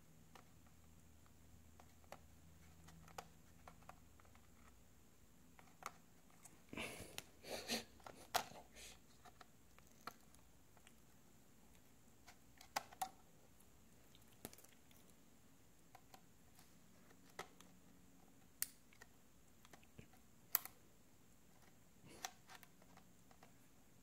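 Faint handling sounds of a replacement iPad digitizer glass panel: scattered light clicks and taps, with a short crinkling patch about seven seconds in, as teal adhesive-tape liner strips are peeled from its frame.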